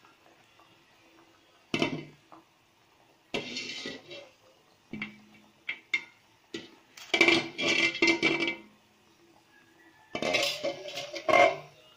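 Metal cookware and utensils clattering and clinking in a series of separate bursts, with a longer run of clatter past the middle and another near the end.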